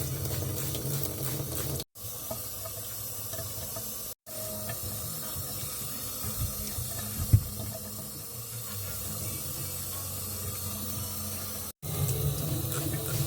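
Water running steadily from a kitchen tap into a sink, broken off abruptly for a moment three times, with a single sharp clunk about midway.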